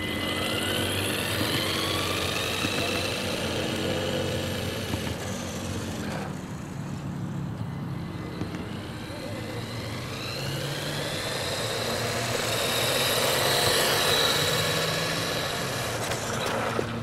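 LiteHawk Brute RC monster truck's electric motor and gears whining as it drives over asphalt, powered by a 2S pack of laptop 18650 cells. The whine rises in pitch as the truck accelerates, once at the start and again about ten seconds in, and is loudest a few seconds after that.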